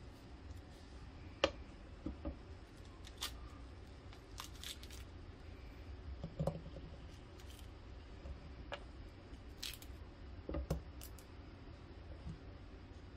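Knife cutting nectarines on a plastic cutting board: scattered light clicks and taps of the blade on the board and of the fruit being handled, over a faint low hum.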